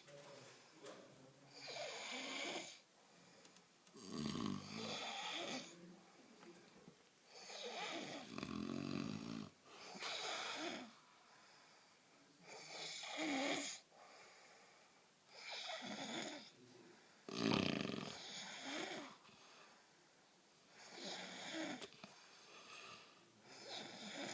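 A person snoring enormously: a rasping snore about every two to three seconds, each lasting about a second.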